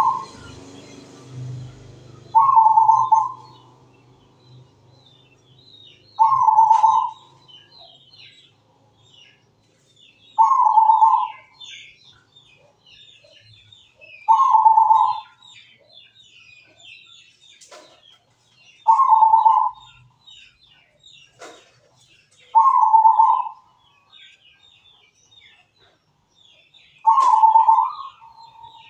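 Zebra dove (perkutut) cooing: a short phrase of about a second, repeated about every four seconds, eight times. Faint high chirping runs in the background.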